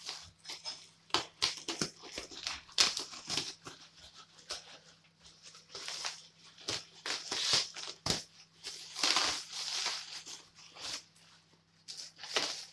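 Plastic wrapping and packing tape being torn and crinkled by hand while a parcel is unwrapped, in irregular rustling and ripping bursts.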